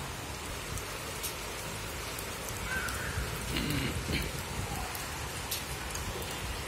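Steady rain falling on wet pavement and foliage, an even hiss with scattered drop ticks.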